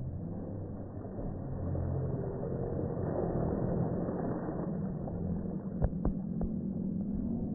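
Pool water splashing and churning as a person on inflatable rings crashes onto an inflatable shark float, slowed down so it comes out as a deep, low wash. A few sharp knocks about six seconds in.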